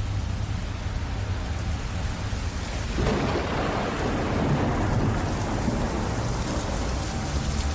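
Steady rain falling, with a roll of thunder that breaks in suddenly about three seconds in, swells, and then slowly fades.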